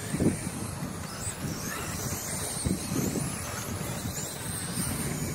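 R/C dirt oval sprint cars racing round the track: several high-pitched motor whines rising and falling as the cars speed up and pass, over a constant low rumble.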